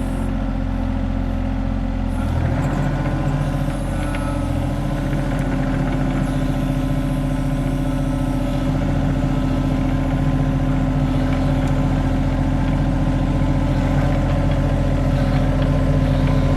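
John Deere 35G mini excavator's diesel engine running steadily while the machine works, a continuous low drone that steps up in pitch and strength about two seconds in as the load comes on.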